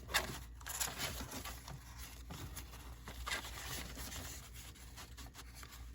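Paper rustling and scraping in short, irregular strokes as an old owner's manual is handled.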